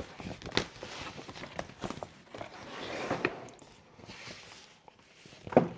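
Rustling with scattered light clicks and knocks as a plastic potting mat is laid out and set up on a table, the rustle loudest about halfway through.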